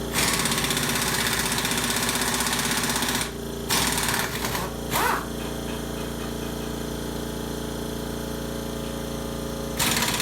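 Air wrench running in bursts as it spins out transmission case bolts: a long burst of about three seconds, a short one about four seconds in, and another near the end. Underneath is the steady hum of an electric-motor air compressor. The compressor sounds short of air pressure.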